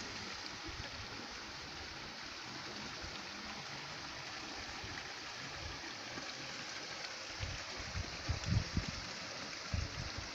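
Steady rush of running water, with a few low bumps on the microphone in the last few seconds.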